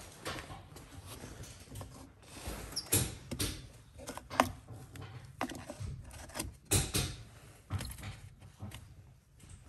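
Irregular clicks, taps and knocks of hand handling, as the plastic cap is put back onto a brake master cylinder reservoir and screwed down.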